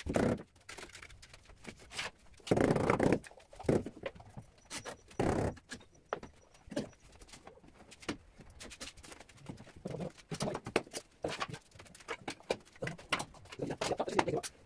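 Tile-setting work on large porcelain floor tiles: a few short bursts of rapid knocking, then a run of short clicks and taps near the end.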